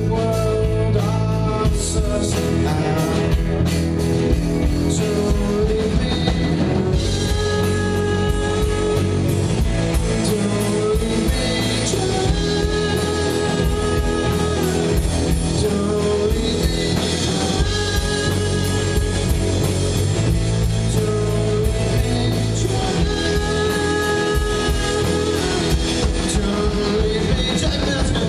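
Live rock band playing electric guitars, bass guitar and drum kit, with a held melodic phrase that comes round about every five seconds.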